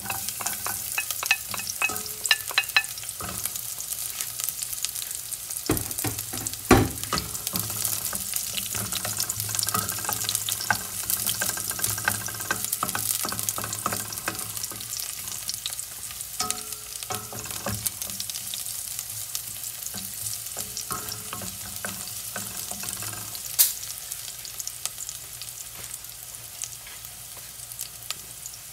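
Chopped garlic and red onions sizzling in oil in a stainless steel pot, with a wooden spatula scraping and tapping against the pot as they are stirred. Two louder knocks stand out, one about seven seconds in and one near the end, after which the stirring stops and only the sizzle goes on.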